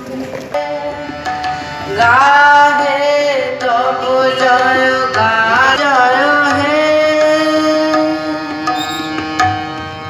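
A boy singing a melody into a microphone over harmonium with tabla strokes. The voice comes in about two seconds in over held harmonium notes, and a few low tabla strokes fall through it.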